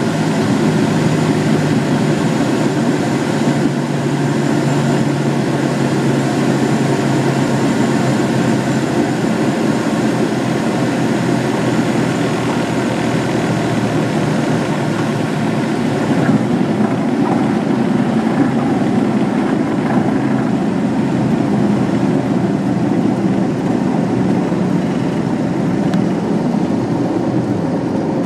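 Van's RV-9 light aircraft's piston engine and propeller running steadily.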